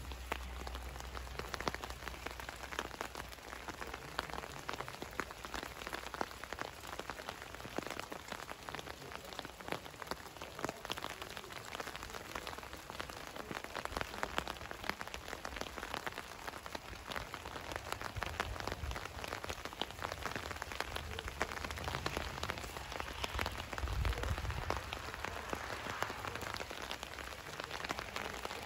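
Rain falling on the leaves of a snowball bush, a dense, steady spread of small drop hits. A few low gusts of wind hit the microphone, the strongest about 24 seconds in.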